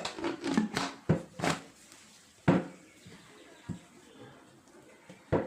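Handling noise: about seven sharp knocks and clacks of hard objects being set down or fitted, spread out over a few seconds.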